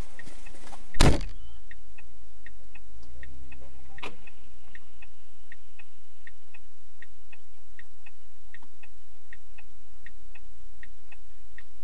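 Turn-signal flasher relay clicking steadily inside a stopped car, about three clicks a second in tick-tock pairs, the sign of hazard lights left on. A single loud thump about a second in.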